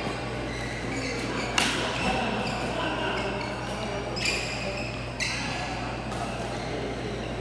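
Badminton rackets striking the shuttlecock during a doubles rally: sharp hits a second or more apart, each with a short echo, the loudest about a second and a half in. A low steady hum runs underneath.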